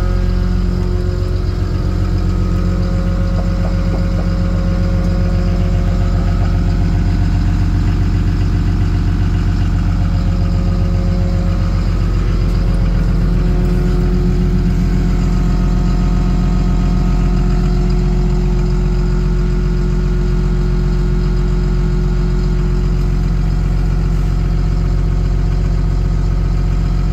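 AMZ Kutno Wydra amphibious vehicle's engine idling steadily, heard from inside its cabin.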